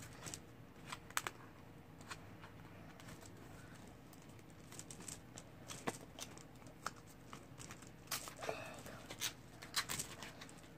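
A toy package being picked at and pried open by hand: irregular small clicks and brief crinkling, with a cluster of crinkles and clicks near the end.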